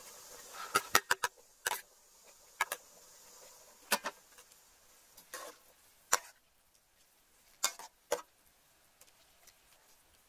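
Irregular sharp clicks and knocks of a metal utensil against an aluminium cooking pot, about a dozen in all, with a quick cluster about a second in. A soft hiss from the simmering pot fades out in the first second.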